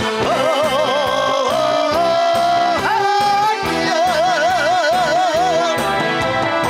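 Korean trot song playing at full volume: a melody in long held notes with a wide vibrato over a steady drum beat.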